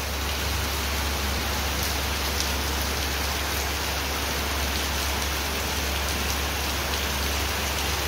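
Heavy rain falling steadily on a paved lane and parked vehicles: a dense, even hiss of rain with a steady low rumble underneath.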